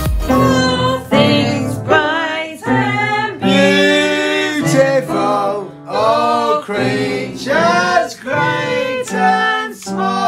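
Singing in long held notes with vibrato, separated by short breaths, over upright piano accompaniment.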